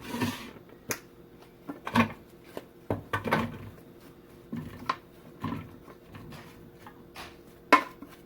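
Sliced raw green plantains and kitchen bowls being handled as the slices are divided into two portions: irregular light clicks, knocks and brief rustling scrapes, with sharper knocks about two seconds in and near the end.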